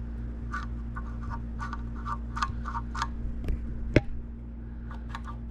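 Light metallic clicking, several a second, as the throttle linkage on a tractor carburetor is worked back and forth by hand to check whether the accelerator pump squirts fuel, over a steady low hum; one sharper click about four seconds in.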